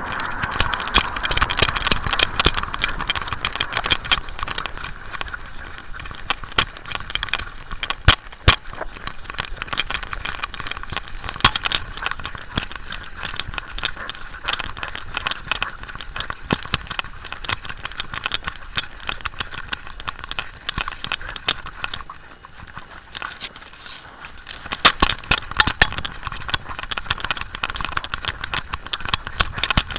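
Rustling and rattling of a small camera worn by a Jack Russell terrier: fur rubbing over the microphone and the housing knocking as the dog moves, with many sharp clicks. It eases off for a few seconds past the middle, then gets busier again.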